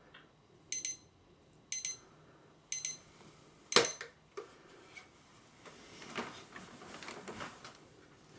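An electronic alarm clock beeping three times, about once a second, followed by one sharp, loud thump; softer rustling and knocking follow.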